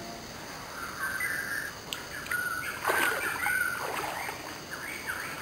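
A hooked fish splashing in shallow muddy water as it is pulled out on a line, with the loudest splashes about two and three seconds in. Birds chirp throughout.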